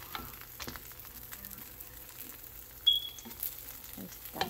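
Butter-fried sandwich bread sizzling faintly in a nonstick pan. About three seconds in there is a short high ring, and near the end a knock as a spatula is worked under a sandwich.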